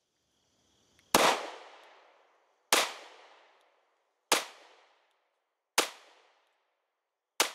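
Five gunshots, evenly spaced about a second and a half apart, each with a long echoing tail that fades out before the next.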